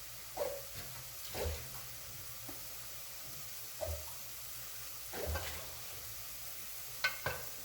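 Onion-tomato masala sizzling faintly in a pan while mutton bones are added and moved about, with several dull knocks and two sharp clinks near the end.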